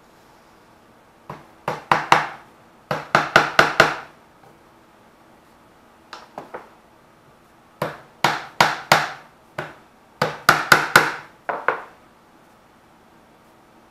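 Hammer tapping on wood in quick bursts of three to six blows, each burst ringing briefly, with pauses between them. The hammering is most likely on wooden wing parts being built up by hand.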